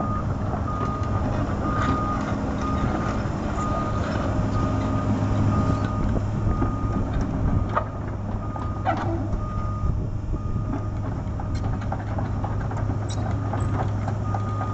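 Komatsu PC200LC-8 crawler excavator travelling on its tracks: the diesel engine runs steadily under a travel alarm beeping about once a second, with a few clanks.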